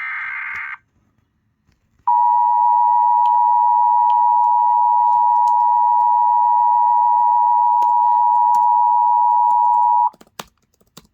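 Emergency Alert System broadcast: the last burst of the SAME digital header screech ends under a second in, and about a second later the steady two-tone EAS attention signal (853 and 960 Hz) sounds for about eight seconds and cuts off abruptly. A few faint clicks follow it.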